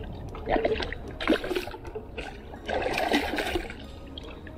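Hooked snook thrashing at the surface beside the boat, splashing water in several bursts, the longest about three seconds in.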